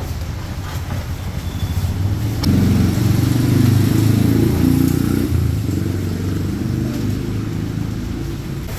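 Street traffic with a motor vehicle engine running close by. The engine rumble grows louder about two and a half seconds in, holds for a few seconds, then eases back to the steady traffic rumble.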